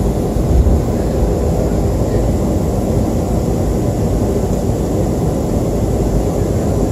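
Cabin noise of a Boeing 737-300 taxiing, heard from a seat over the wing: its CFM56-3 jet engines running at low thrust as a steady, even rumble, with no spool-up.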